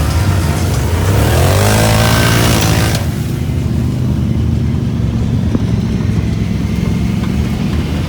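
ATV engine revving, its pitch climbing in sweeps under a rushing hiss for about three seconds, then dropping back to run steadily at lower revs.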